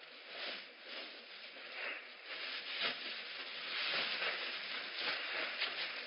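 Rustling and scuffling as two kittens wrestle on a fleece bed, heard through a security camera's microphone with a hissy background. The scuffling comes in uneven bursts and grows louder about halfway through.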